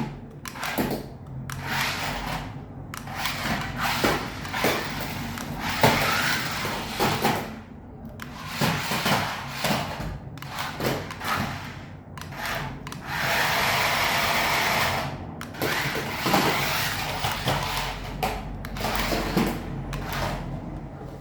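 Small electric motor of an all-terrain toy RC car whirring in repeated bursts as it is driven in starts and stops, with one longer steady run of about two seconds past the middle.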